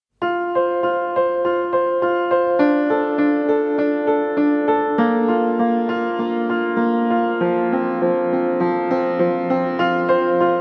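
Background music: a piano or electric piano playing a gentle repeating pattern of notes, starting a moment in.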